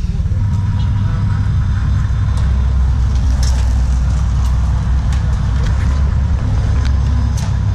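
A steady low mechanical hum, like a motor running nearby, with scattered crunching footsteps on gravel.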